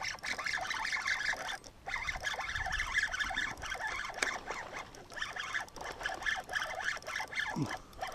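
Spinning fishing reel being cranked against a hooked bass, giving a steady fast scratchy clicking. Near the end a person lets out a short falling exclamation.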